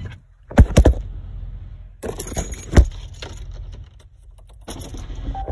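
Several sharp clacks or knocks, with a metallic jangling rattle about two seconds in.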